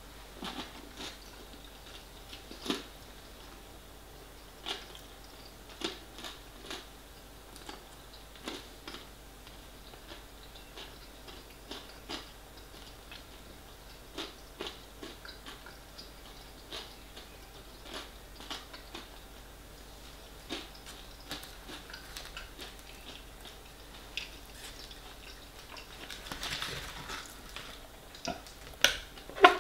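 A man chewing a mouthful of crunchy dumpling topping from a steak pie, with faint scattered lip smacks and mouth clicks. Near the end, a fork scrapes and clicks against the foil tray as he scoops up more.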